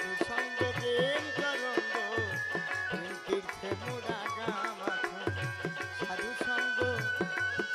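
Instrumental interlude of a Bengali baul song: plucked dotara melody over a hand-drum rhythm with low strokes about once a second, and a long held high note carried over it.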